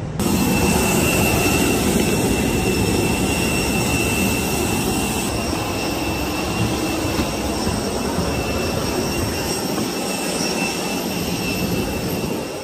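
Jet airliner running close by on the apron: a loud, steady rumble under a constant high-pitched whine.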